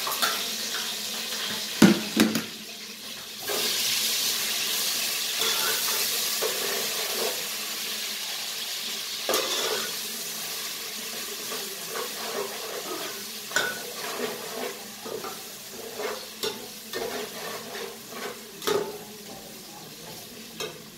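Browned onions and freshly added ginger-garlic paste sizzling in oil in a stainless steel pot, the frying getting louder about three seconds in. A spoon is stirred through it, knocking and scraping against the sides of the pot many times.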